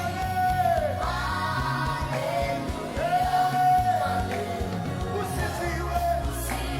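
Christian worship song: a singer holding long, wavering notes over a band with steady bass.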